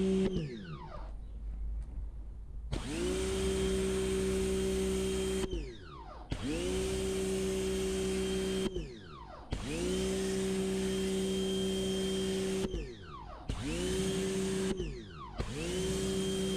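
Electric pressure washer starting and stopping repeatedly: a steady motor hum with the hiss of the water spray, cut off about five times, each stop winding down in a falling whine.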